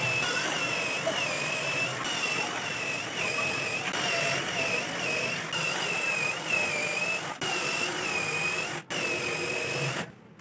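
Cordless drill boring holes into plywood. Its motor whine dips in pitch and recovers over and over under load, then stops abruptly about ten seconds in.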